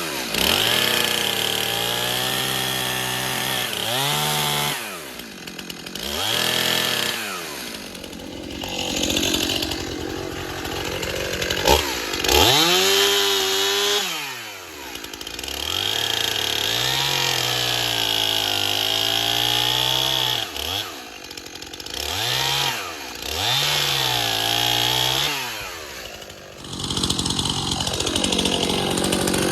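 STIHL MS 291 two-stroke chainsaw running, throttled up and down repeatedly: long stretches at high revs broken by several drops to idle.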